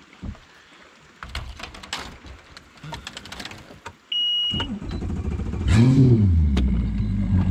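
A short high beep, then a boat's outboard motor starts about four and a half seconds in, revs up briefly and settles into a steady idle. Scattered clicks and knocks of gear being handled come before it.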